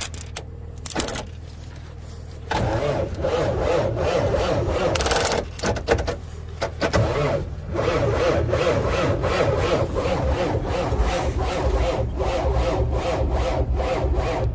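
Starter cranking the cold engine of a 1959 Kenworth truck in a steady, rhythmic churn without it catching, starting about two and a half seconds in and briefly dropping out near the middle. The single 12-volt battery lacks the power to spin it fast enough.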